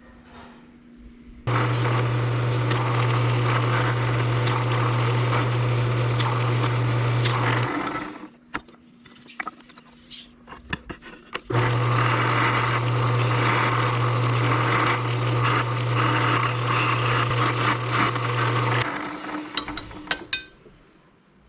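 Electric power tool motor running in two bursts of about six and seven seconds, each starting abruptly with a steady hum, the second fading out briefly as it winds down.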